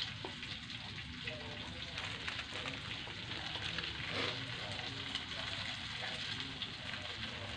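Instant fried noodles sizzling in a steel wok over a low gas flame: a steady sizzle with faint scattered crackles.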